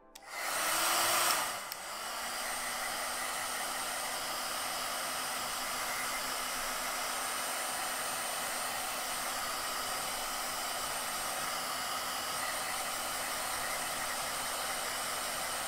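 Hair dryer blowing, drying freshly applied paint on a polymer clay sculpture before the next highlighting coat. It switches on at the start, runs louder for the first second and a half, then settles into a steady rush of air with a faint low hum.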